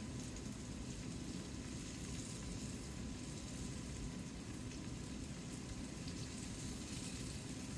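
Cornstarch-dredged tofu cubes frying in sesame oil in a skillet: a steady sizzle with light crackles.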